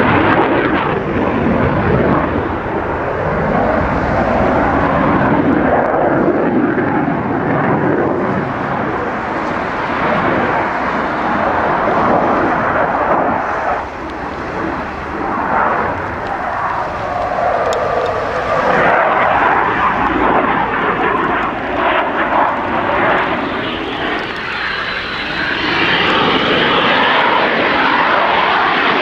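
Dassault Mirage 2000 fighter's single SNECMA M53 turbofan engine running at display power, a loud jet noise that swells and sweeps up and down as the jet manoeuvres overhead, with a thin whine climbing near the end.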